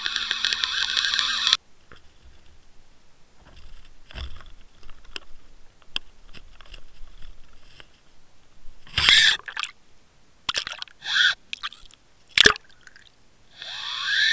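Underwater fishing camera on a bottom rig, its housing knocking and scraping: a loud rushing noise with a low wavering hum cuts off suddenly about one and a half seconds in, followed by scattered clicks, several loud scraping bursts, a sharp knock and a final burst with a rising pitch near the end.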